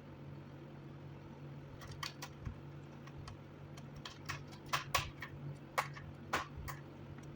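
Light clicks and taps of small hard parts being handled, about a dozen irregular ones in the second half, over a steady low hum.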